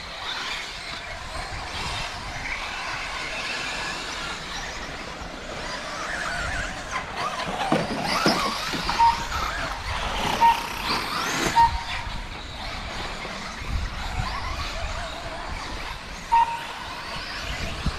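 1/8-scale RC truggies racing around a dirt track, their motors whining up and down in pitch, loudest as one passes close about eight seconds in. Four short beeps at the same pitch sound in the second half.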